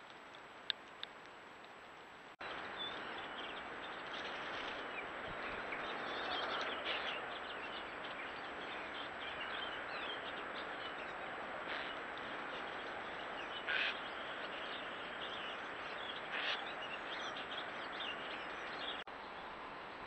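Steady rush of a storm's wind and hail, with small birds chirping through it; it starts abruptly a couple of seconds in and drops away near the end. Before it, a faint hiss with two sharp clicks.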